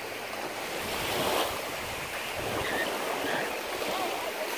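Small waves washing onto a sandy beach, a steady hiss of surf that swells and eases, with some wind buffeting the microphone.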